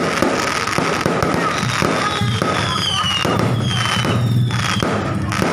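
Fireworks going off: a dense, rapid crackle, then from about two seconds in several whistles falling in pitch, one after another.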